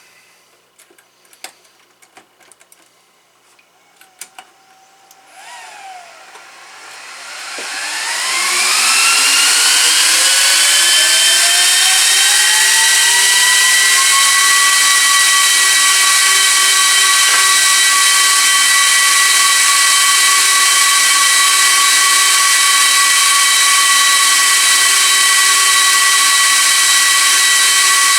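Gigabyte R180-F34 rack server powering up: after a few clicks, its cooling fans spin up over several seconds with a rising whine. They settle into a loud, steady, high-pitched whine of several tones, running flat out while the machine tries to POST.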